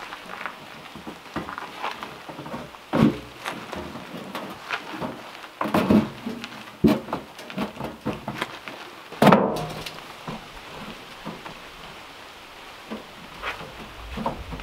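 Irregular wooden knocks and clatters from wood being worked or handled. The loudest come about three, six, seven and nine seconds in, with lighter taps between.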